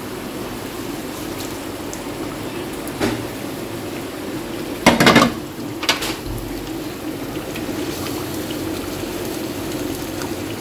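Thick masala gravy bubbling steadily in a kadai as fried chicken tikka pieces are scraped in from a frying pan, with a loud clatter of pan and spatula against the pot about five seconds in, a smaller one just after, and then stirring.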